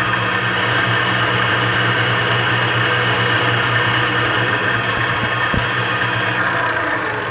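Benchtop mini metal lathe running at speed: steady motor and gear hum with a whine from the spinning chuck.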